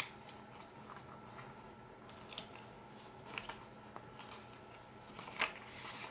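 Faint taps and light rustles of paper and stickers being handled on a planner page, with a louder rustle about five and a half seconds in.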